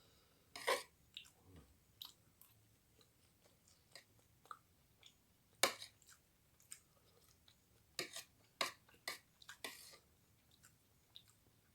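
Close-miked chewing and mouth sounds of a person eating fried rice, with irregular sharp wet clicks and smacks.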